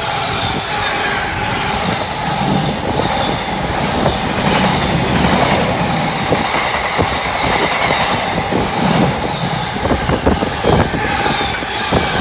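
Container wagons of a freight train passing close at speed: a steady rumble of steel wheels on the rails with repeated clattering knocks and a steady ringing squeal from the wheels.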